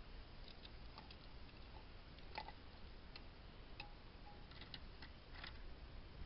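Faint, scattered light metal clicks, about one a second: small steel valve keepers being dropped into a can as the valves come out of the cylinder head.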